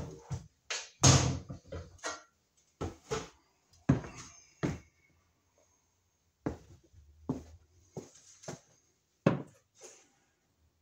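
A series of irregular knocks and clicks, about a dozen in all, with a quiet pause of about a second midway.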